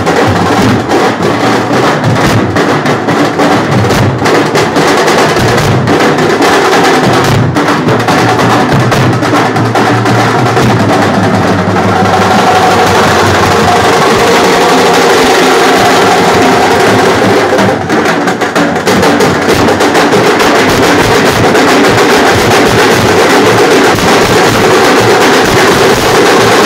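A troupe of drummers beating large metal-shelled drums with sticks together with smaller chest-slung drums, in a loud, unbroken rhythm.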